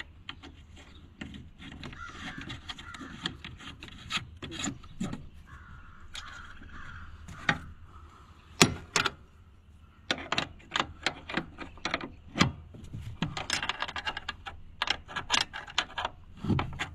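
Scattered light metal clicks, knocks and scraping as a washer and lock nut are fitted by hand onto a garden tractor's seat-mounting bolt, with a quicker run of clicks near the end.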